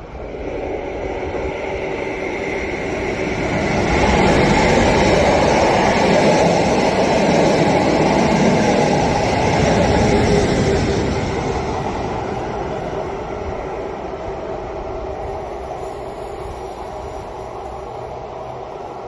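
ÖBB class 1020 electric locomotive and its train of empty coaches passing through without stopping: the running noise of the locomotive and of wheels on the rails builds, is loudest as the locomotive goes by, then slowly fades as the train moves away.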